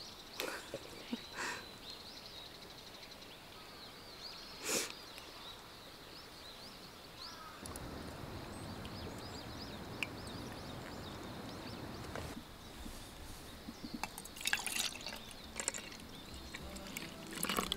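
Pour-over coffee being made: liquid trickles and pours quietly for about five seconds in the middle, and near the end brewed coffee is poured from a glass server into metal mugs, with a few light clicks. Birds chirp faintly in the background.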